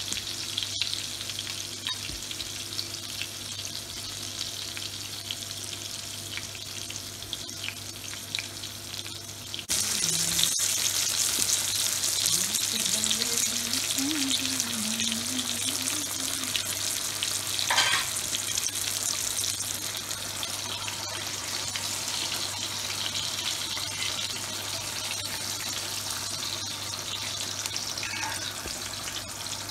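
Chapli kebab patties sizzling in shallow oil on a flat tawa griddle, a steady crackling hiss that gets louder about ten seconds in.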